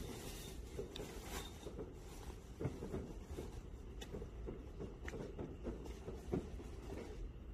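Distant fireworks going off: irregular muffled bangs and pops, several to a few seconds apart, over a steady low rumble.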